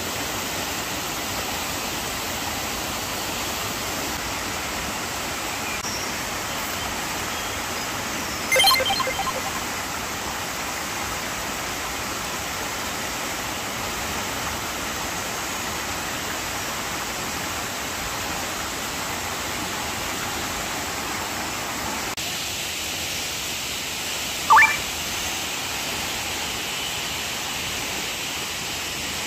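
Steady rush of a waterfall, with a brief pulsed call about nine seconds in and a short rising call near the end.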